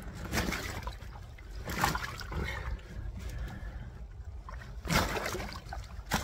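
Shallow lake water splashing in a few short bursts as a large carp is handled in it by hand.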